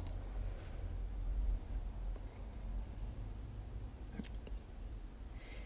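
Faint background noise with a steady high-pitched electronic whine and a low hum, and a single sharp click about four seconds in.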